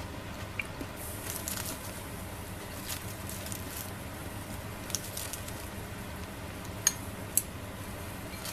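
Squid grilling on a wire grill net over a mini fire pit's solid-fuel flame, with scattered sizzling crackles and two sharp clicks near the end.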